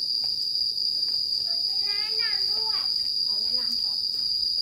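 Insects making one steady, unbroken high-pitched drone.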